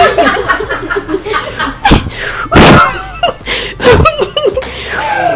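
A small group of people chuckling and snickering, stifling laughter they are trying to hold in, with short breathy bursts of laughter around two and four seconds in.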